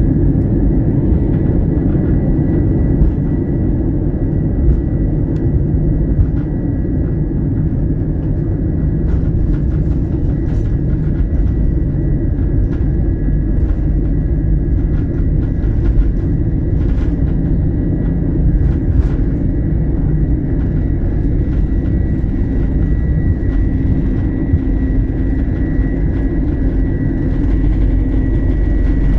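Jet airliner cabin noise from a window seat beside the wing turbofan: a steady loud engine rumble with a whine, with scattered clicks and knocks in the middle as the aircraft rolls along the runway. Near the end the engine tone grows stronger as takeoff power builds.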